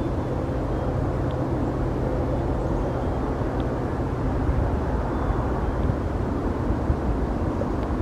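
Steady low engine rumble in the background, with a few faint, short, high chip notes from a northern cardinal.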